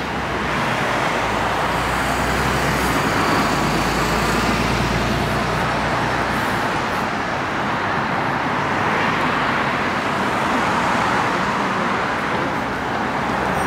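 Road traffic on a busy multi-lane city road: cars and taxis passing in a steady wash of tyre and engine noise, with a low rumble underneath that drops away about six seconds in.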